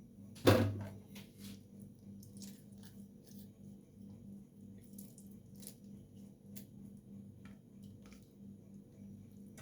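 Knife cutting peeled citrus fruit on a cutting board: one sharp knock about half a second in, then scattered light taps and juicy squishes as the slices come off. A faint steady hum runs underneath.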